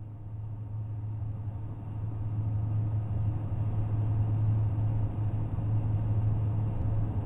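A low, steady rumbling drone with a deep hum, fading in and growing steadily louder.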